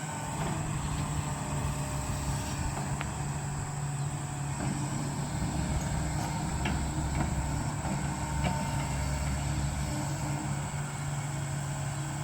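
Diesel engine of a Volvo heavy machine running steadily at a constant speed.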